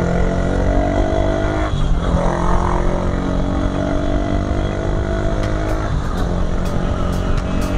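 Motorcycle engine running under way, its note steady but breaking briefly about two seconds in and again about six seconds in.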